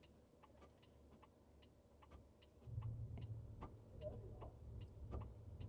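Robotaxi's turn-signal indicator ticking faintly in the car's cabin, about three ticks a second. A low cabin rumble comes in about halfway through.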